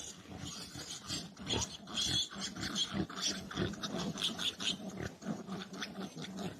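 A dog making a run of short, irregular sounds.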